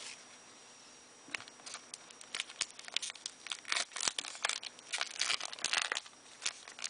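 Foil wrapper of a trading-card booster pack crinkling and tearing as it is opened by hand. An irregular run of crackles starts about a second in and grows dense and loud from about two seconds on.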